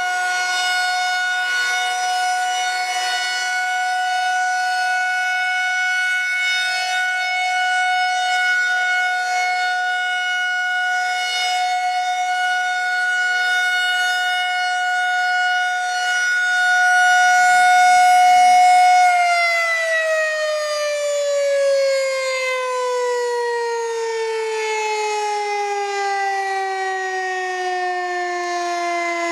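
Federal Signal 2001-130 outdoor warning siren holding a steady tone during its monthly test. About nineteen seconds in, it winds down, its pitch falling steadily as the rotor coasts down. A brief low rumble comes just before the wind-down.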